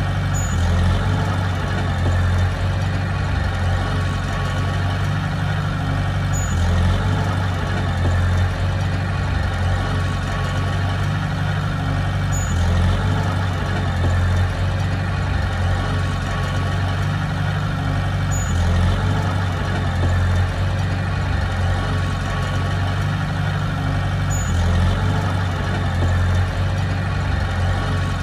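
A heavy construction machine's diesel engine running steadily, its note swelling briefly about every six seconds in a regular cycle.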